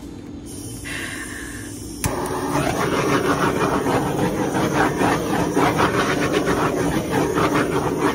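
A handheld heat tool is switched on with a click about two seconds in, then runs over the wet acrylic paint with a steady, rough rushing noise.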